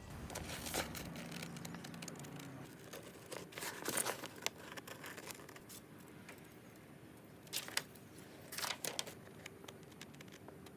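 Scissors cutting through printed paper: a few short spells of crisp snipping and paper crinkling, with quiet gaps between.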